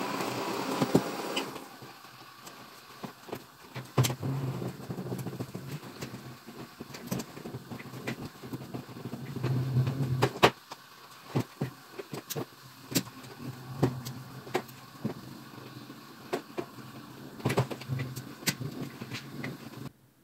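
Clothes and hangers being handled on a laundry drying rack: irregular clicks and knocks with fabric rustling. A steady rushing noise stops about a second and a half in.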